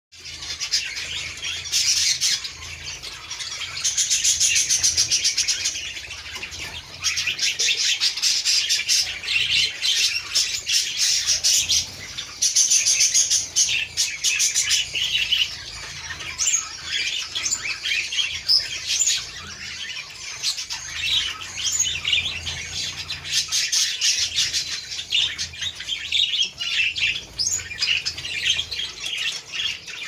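A flock of zebra finches calling over one another in a continuous high chatter, busier in several stretches.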